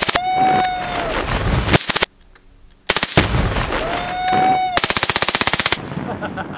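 Full-auto AR rifle firing in rapid, evenly spaced bursts: one right at the start and another about five seconds in, with a high tone that rises and falls between them. The sound cuts out suddenly for about a second around two seconds in.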